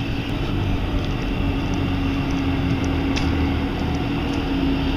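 A steady mechanical hum, one constant low tone over a rumble, growing a little louder near the end, with a few faint ticks.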